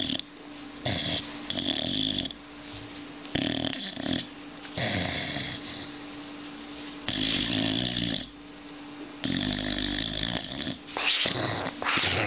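A sleeping boxer dog snoring loudly, with about six long, rasping snores coming roughly every two seconds.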